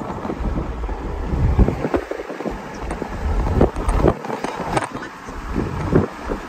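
Wind buffeting the microphone of a phone held at the window of a moving car, in uneven surges over the car's low road rumble.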